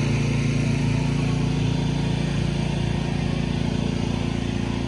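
A small engine running steadily at an even speed, a constant low hum.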